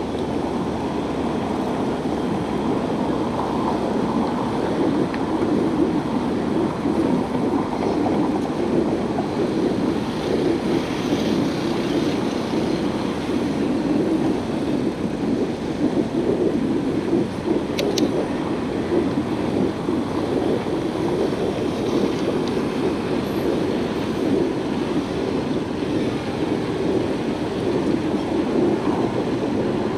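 Bicycle rolling along a paved bike lane: a steady rumble of the tyres on the path, with a single sharp click about 18 seconds in.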